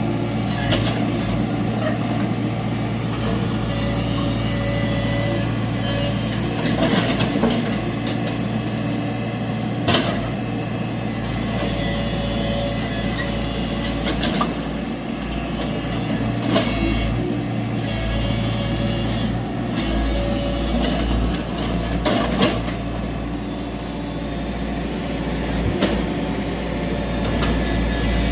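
Tata Hitachi EX70 excavator's diesel engine running steadily as it loads a truck, with occasional sharp knocks and clanks several seconds apart.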